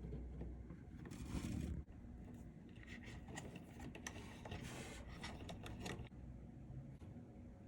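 Computer parts being handled during assembly: scraping and rustling, with scattered light clicks.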